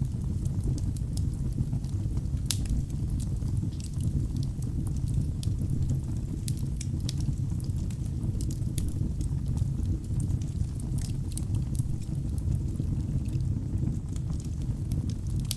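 Wood logs burning in a fireplace: a steady low roar of flames with scattered sharp crackles and pops, one louder pop about two and a half seconds in.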